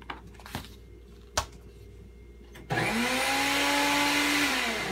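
Electric blender switched on a little past halfway: the motor spins up quickly to a steady pitch with a rushing whir, then winds down near the end. A few sharp clicks come before it.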